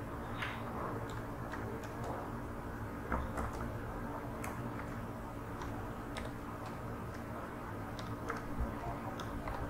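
Computer keyboard keys clicking irregularly, about two keystrokes a second, as an email address is typed. A steady low electrical hum runs underneath.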